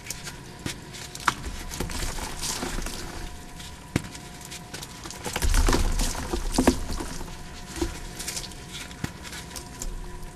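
Water-soaked gym chalk blocks crumbling and crunching as gloved hands squeeze and break them, a busy crackle of small snaps and clicks. The loudest crush, with a dull thud, comes about halfway through.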